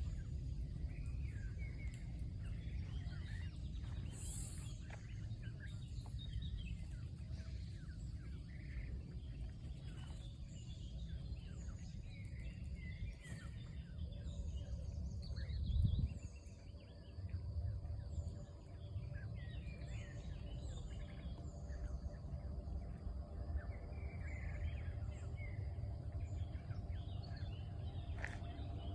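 Many small birds chirping and twittering in short, high calls throughout, over a steady low rumble. A brief loud low thump comes about halfway.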